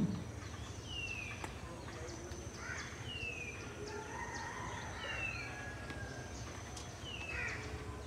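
Birds calling in a garden: a short falling whistled note repeated every second or two, with a crow cawing now and then, over a steady high-pitched insect drone.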